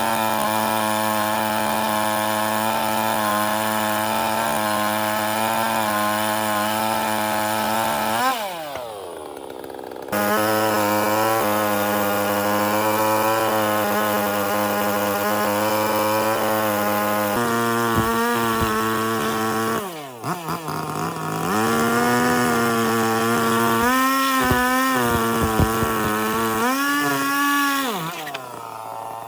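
A power tool's motor running under load on wood. It winds down to a stop about 8 seconds in and starts again two seconds later. Its pitch then drops and wavers as it bites, and it winds down again near the end.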